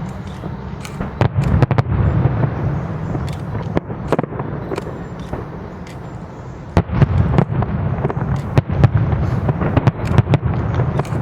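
Fireworks display exploding: many sharp bangs and pops overlapping over a continuous low rumble, coming thickest and loudest from about seven seconds in.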